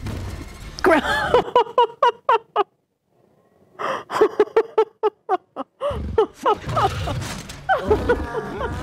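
A woman laughing in short, quick bursts, breaking off for about a second, then laughing again.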